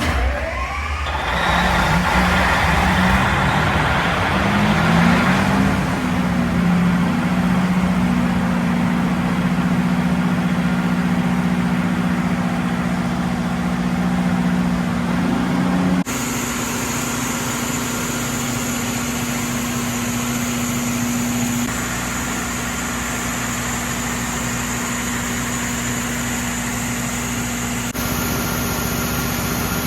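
Mitsubishi S12H-Y1PTA-3 diesel engine of a 1000 kW Kohler standby generator running during a load bank test, a loud steady drone. It climbs in pitch over the first few seconds, then holds steady. The sound changes abruptly about halfway through and again near the end.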